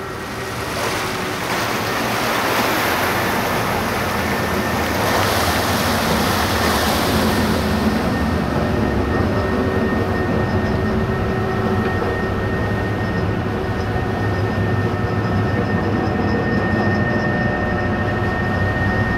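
Car ferry's machinery running with a steady low drone and a steady high whine, with water rushing and splashing along the hull for the first several seconds as the ferry gets under way.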